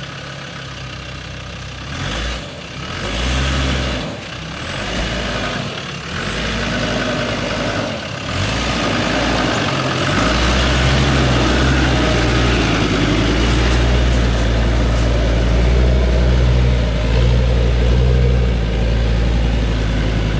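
A four-wheel-drive's engine revs in short surges, then pulls steadily and loudly under load from about halfway through as the vehicle climbs a slippery slope.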